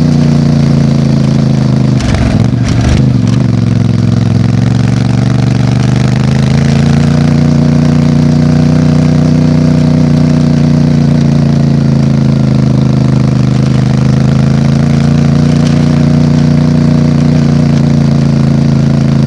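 CFMOTO 450MT's parallel-twin engine idling steadily through its exhaust. A few brief knocks come about two seconds in.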